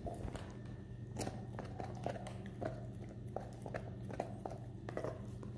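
Weimaraner gnawing a bone: irregular crunches and cracks of teeth on bone, about two to three a second, over a steady low hum.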